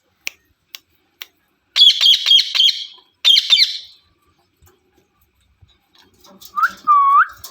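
A pet parrot calling: a few sharp clicks, then two bursts of fast, harsh chirping squawks, and two short rising whistled notes near the end.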